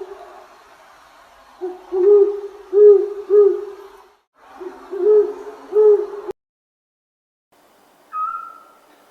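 Owl hooting: two runs of three or four low hoots, each hoot arching up and back down. The hooting cuts off suddenly about six seconds in, and a short, higher whistle-like tone follows near the end.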